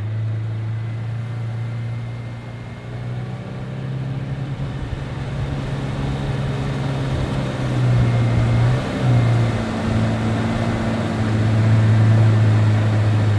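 Boat's outboard motor running steadily under way, a low even hum that gets louder about eight seconds in and again near the end.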